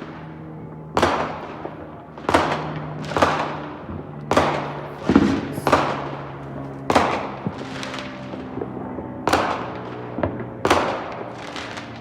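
Neighbourhood fireworks exploding, about ten loud bangs a second or so apart, each followed by a rolling echo as it dies away.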